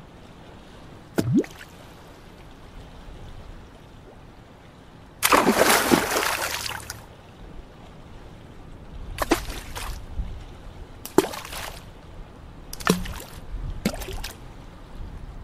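Water splashing close to the microphone on a lake surface: a short plop about a second in, a big splash lasting about two seconds about five seconds in, then four shorter splashes a second or two apart.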